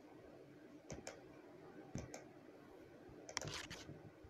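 A quiet room with a few faint, sharp clicks and a brief soft rustle about three and a half seconds in: handling noise from a Bible held close to a phone as it is read.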